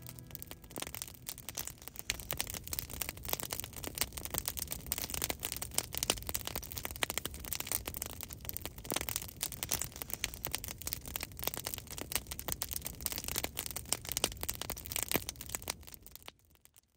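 Wood campfire crackling, with many irregular sharp snaps. It fades out near the end.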